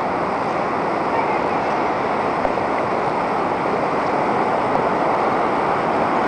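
Steady rushing wash of surf on a sandy beach, even and unbroken.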